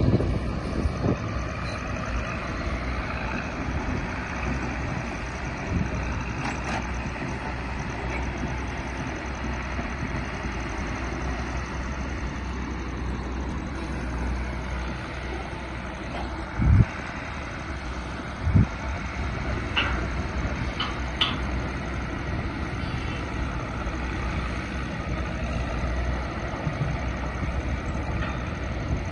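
Heavy earthmoving vehicles, dump trucks and a backhoe loader, running as a steady engine rumble, with two short low thumps a little past the middle.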